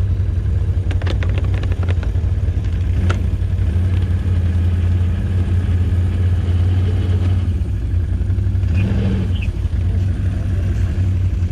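ATV engine running steadily at low revs, with a few sharp clattering knocks in the first few seconds and a slight change in engine note about two-thirds of the way through.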